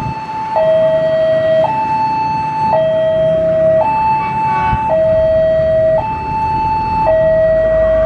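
Railway level-crossing warning alarm sounding: a steady electronic two-tone, high and low notes alternating about once a second, over a low rumble.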